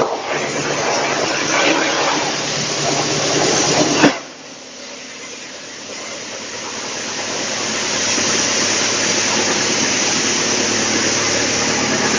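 Drum wood chipper running: a steady low hum under a loud rushing hiss. About four seconds in, the sound cuts sharply to a quieter hum, then builds back over a few seconds to a steady, loud run.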